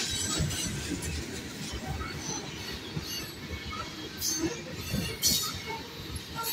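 Freight train of covered hopper cars rolling past: a steady rumble and rattle of steel wheels on the rails, with two brief shrill metallic squeals about four and five seconds in.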